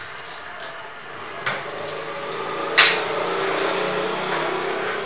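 Steady low hum under a few sharp handling clicks, the loudest a single sharp click a little past halfway.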